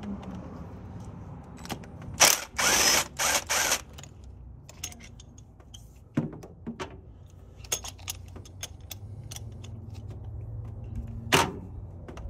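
Cordless drill with a long socket extension running in three short bursts, spinning out the M62 supercharger's mounting bolts, then scattered ratchet-like clicks from hand tools, and one more short drill burst near the end.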